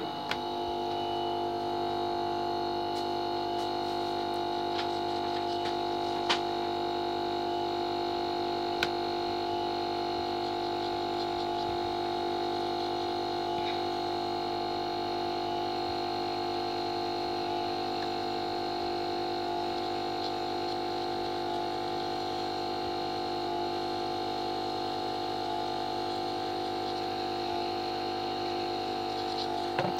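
A small handheld electric blower runs steadily with a constant motor whine and rushing air, played over a phone circuit board to dry and clear it after cleaning.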